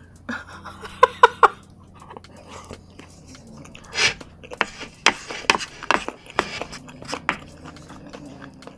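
A person chewing food: a short voiced sound in three quick pulses about a second in, then a run of sharp mouth clicks from about four seconds in.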